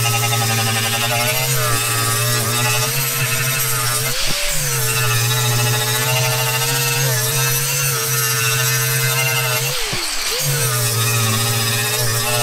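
Electric angle grinder with a sanding disc running against the rough cast surface of a cast iron griddle, grinding down the casting's high spots. It is a steady motor whine whose pitch wavers briefly about four seconds in and sags near ten seconds in as the disc is worked across the iron.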